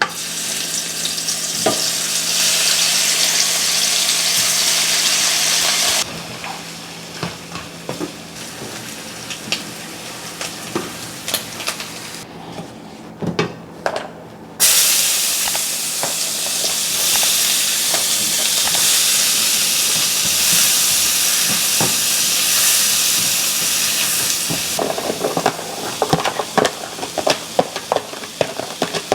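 Food sizzling in hot oil in a pan. Two loud stretches of sizzling begin and end abruptly, and between them come quieter stretches of light clicks and knocks.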